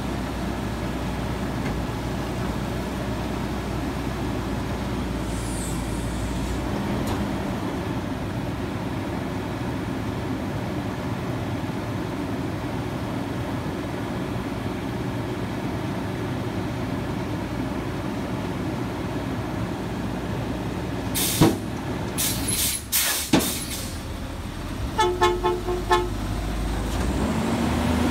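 CNG front-loader garbage truck (Autocar ACX / Heil Odyssey) running steadily with its engine and hydraulics while the Curotto Can is worked. About 21 seconds in there are a few loud metallic bangs, then a quick run of about five short toots. Right at the end the engine starts to rev up.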